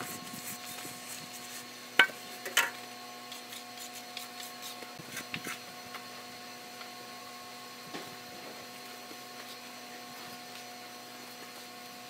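Hand plastering tools knocking and scraping on fresh sand-and-cement render, with two sharp knocks about two seconds in and a few lighter taps and rubs after, over a steady hum.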